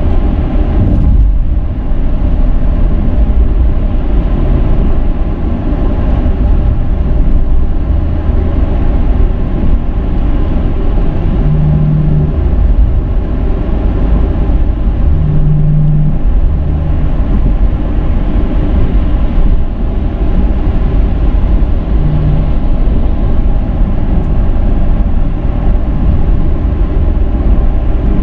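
Cabin noise of a 2007 Dodge Charger driving at highway speed: a steady low rumble of engine and tyres on the road.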